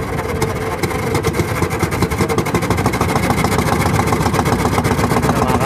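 Small boat engine of a motorised outrigger fishing boat (bangka) running steadily with a fast, even beat.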